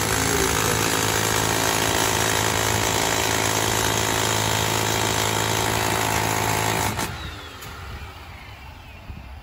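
Electric demolition hammer running continuously, hammering into the ground, with a steady motor hum under the rattle; it stops about seven seconds in, leaving a much quieter background.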